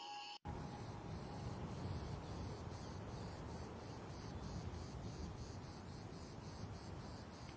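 Faint outdoor ambience of an insect chirping in a steady high-pitched pulse, about three chirps a second, over a low steady background noise. Soft music cuts off about half a second in.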